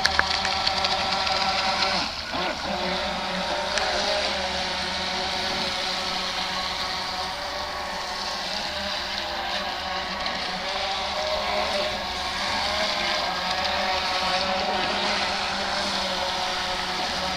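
Electric RC speedboat running on the water: a steady high motor whine over the hiss of the hull and spray, easing off briefly about two seconds in.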